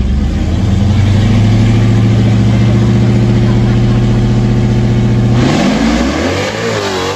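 Drag race car's engine held at a steady high rpm on the starting line. About five and a half seconds in the pitch climbs sharply as the car launches, then wavers up and down and begins to fade as it pulls away.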